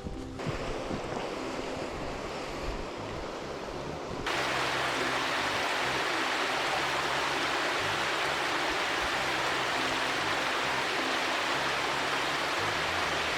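Rushing water of a mountain gorge's stream and falls, a steady even rush that becomes clearly louder about four seconds in.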